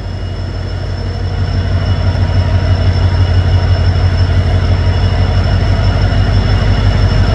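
Locomotive of a departing passenger train humming: a low, rapidly throbbing rumble with steady high whines above it, growing steadily louder as the train gets under way.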